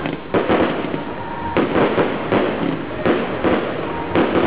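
Aerial fireworks shells bursting overhead: a run of sharp bangs, about one a second, each trailing off.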